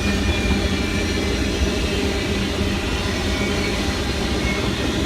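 Circus train's rail cars rolling past, a steady rumble of wheels on the track.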